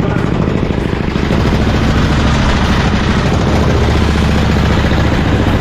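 Caterpillar D8H bulldozer's engine running with a dense, rapid rhythmic beat, growing louder about a second in and then holding steady.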